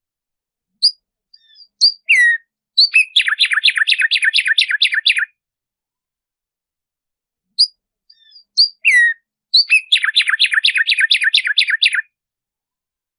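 Black-striped sparrow (tumbayegua) singing two songs. Each opens with a few scattered high notes and a down-slurred whistle, then runs into a fast series of repeated notes, about six a second, for roughly two seconds.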